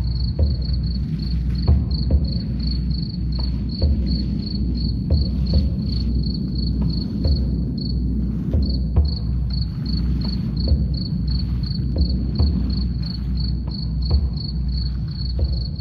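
Crickets chirping steadily at about four chirps a second, over a low rumble with soft, deep drum beats.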